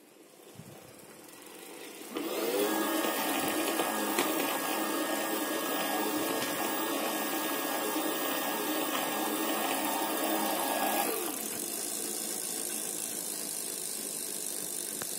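Bafang 250 W mid-drive e-bike motor spinning up about two seconds in and driving the chain, 38-tooth narrow-wide chainring and 9-speed 11-40 cassette with a steady whine and chain noise. It winds down about eleven seconds in, and the drivetrain runs on more quietly after that.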